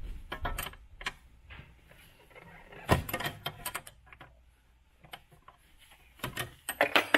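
Scattered clicks and taps of hand and tool work on the brake pipe union nuts at the brake master cylinder: a sharp click about three seconds in, a few quick ones after it, and another cluster near the end.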